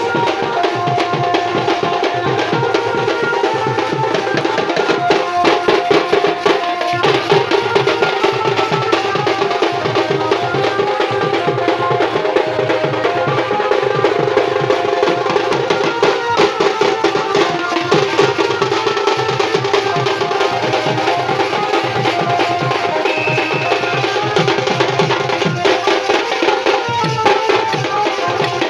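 Dhol and tasha drums beating a fast, dense rhythm without a break, with steady pitched notes sounding over the drumming at times.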